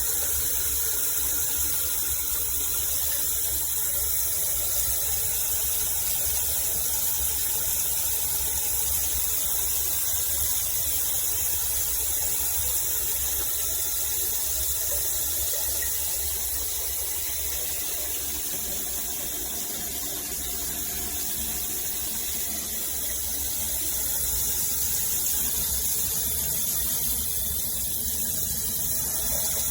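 Shower water running steadily from a rainfall shower head, an even hiss of spray with a slight dip in level about two-thirds of the way through.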